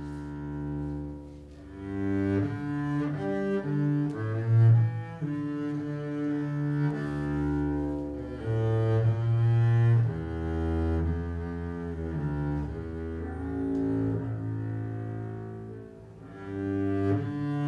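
Double bass played with a bow: a slow melody of long held notes.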